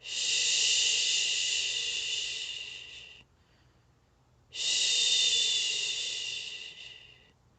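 A person shushing: two long "shhh" sounds, each about three seconds long and fading away at its end, with a short pause between them. A soothing shush of the kind used to settle a baby to sleep.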